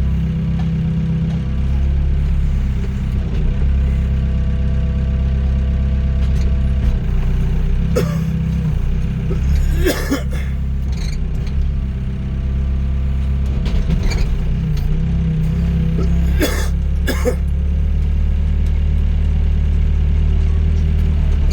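Doosan DX55 mini excavator's diesel engine running steadily under hydraulic load, with a whine that shifts in pitch as the arm and bucket move. Four sharp clanks are spread through, two close together near the end, typical of the toothed bucket knocking against concrete pile heads.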